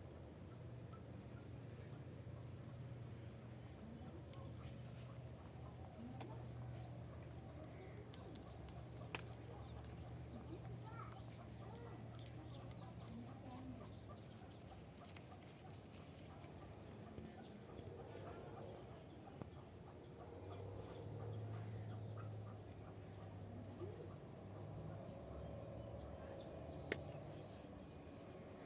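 Quiet outdoor ambience: a high chirp repeating evenly about one and a half times a second, typical of a cricket, over a low hum and faint bird calls, with a couple of sharp ticks.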